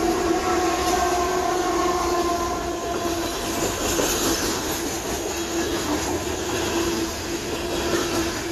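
A train's steady sound, a continuous noise with a few steady humming tones held throughout.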